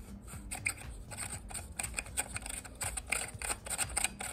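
Quick irregular light clicks and scraping as a lamp socket is twisted onto the threaded top of a metal table lamp and the lamp is handled.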